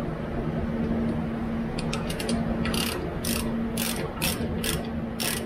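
Ratchet wrench clicking as it threads a plug back into the rear differential after an oil drain. A few quick clicks come about two seconds in, then repeated strokes about two a second.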